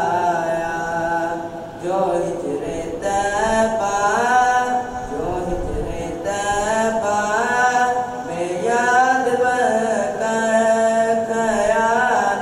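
A boy singing a naat unaccompanied into a headset microphone. He sings in long, gliding melodic phrases with short breaths between them.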